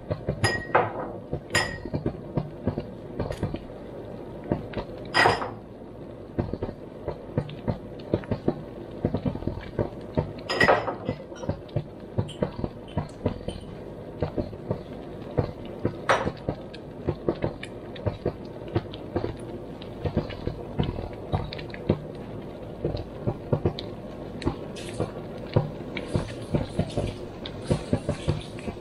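Strawberry jam at a rolling boil in a stainless steel pot, bubbling and popping steadily, with the sugar already in, while a wooden spoon stirs it without pause. The spoon knocks sharply against the pot a few times.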